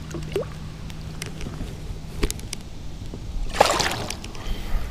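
Water splashing as a largemouth bass is let go from the hand over the side of a kayak and swims off, with one short splash about three and a half seconds in after a few small drips and clicks.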